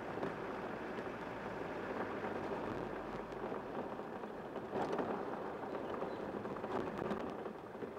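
Steady engine and tyre noise heard inside the cabin of a moving vehicle, with a couple of faint knocks about five and seven seconds in.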